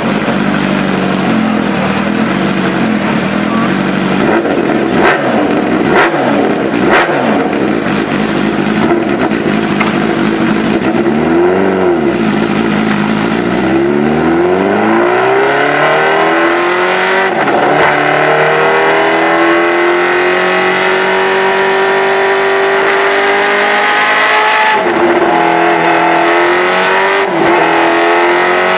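Kawasaki Ninja H2R's supercharged 998 cc inline-four on a chassis dyno: running at low revs with throttle blips and a few sharp cracks, then one quick rev up and down, then a long run up with the pitch climbing steadily and levelling off high, broken by two brief drops near the end.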